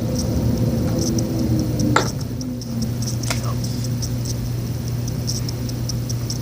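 Shampoo being squeezed and poured from a plastic bottle into a bowl: small squelching ticks and two sharp clicks, over a steady low hum.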